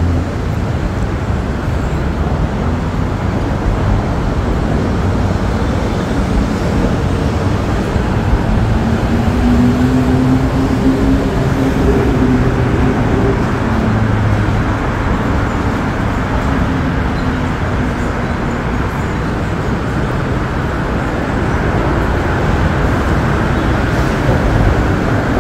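Steady road traffic on the Queensboro Bridge. Near the middle, one vehicle's engine drone rises and then falls in pitch as it passes.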